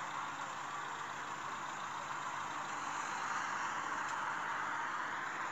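Steady road-traffic noise: vehicle engines running and tyre hiss, with no single event standing out, growing a little louder about halfway through.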